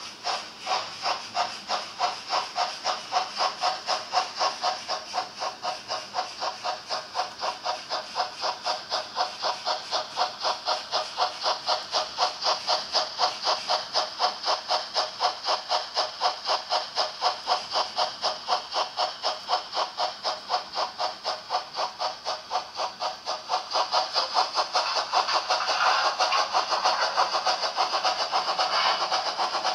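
Model steam locomotive's sound decoder chuffing in a steady rhythm of about three chuffs a second as the train runs, getting louder about three-quarters of the way through.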